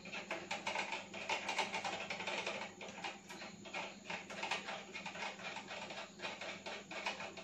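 Rapid, irregular small metal clicks and rattles from fitting the end of a telescope's altitude slow-motion control rod onto the screw on the tube and working it into place.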